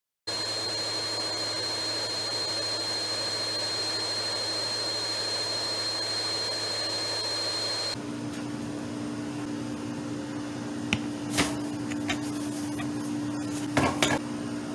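Vacuum cleaner running, a steady rushing noise with a high whine. About eight seconds in it cuts to a lower, steady hum, with a few short knocks and clicks near the end.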